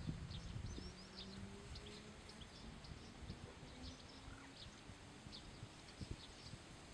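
Faint outdoor ambience: scattered short, high chirps of small birds, with a low rumble in the first second and a faint low drone underneath.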